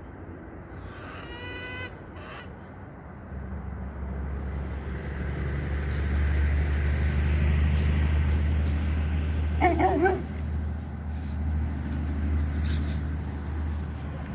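A vehicle engine running, growing louder a few seconds in and then holding steady, with a short chicken call about ten seconds in.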